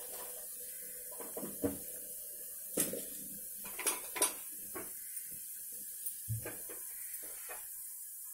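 Tempering of mustard seeds, chana dal, cumin and curry leaves sizzling in hot oil in a kadai, with scattered sharp pops and crackles as the seeds splutter.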